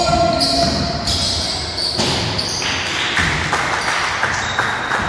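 Basketball game in a hall: a ball bouncing on the wooden court, with sneaker squeaks and the echo of the hall. A short high tone sounds near the start.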